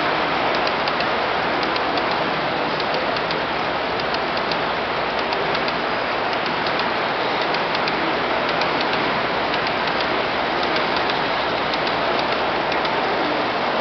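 Large-scale garden-railway train of model hopper cars rolling past, a steady hiss of metal wheels on the rails with fast, light clicking over the track joints.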